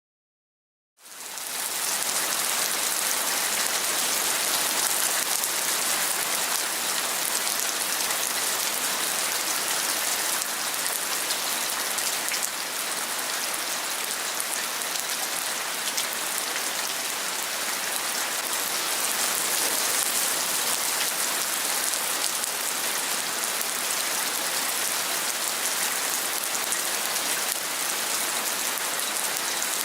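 Heavy rain falling steadily, a dense even hiss of drops. It starts from silence about a second in.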